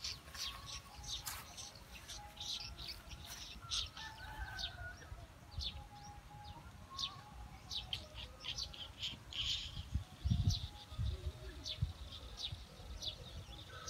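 Birds chirping in the background, with many short, high chirps and some lower wavering calls. A few low rumbles break in about ten seconds in.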